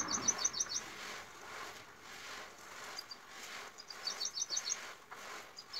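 A bird giving a quick run of high chirps, about seven notes in under a second, heard twice: at the start and again about four seconds in.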